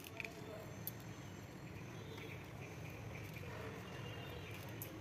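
Faint steady room hiss with a few soft, short ticks.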